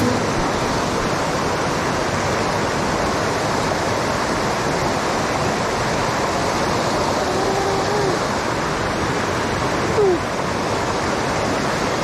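Rushing water of a shallow rocky stream spilling over a small cascade of boulders: a steady, loud rush.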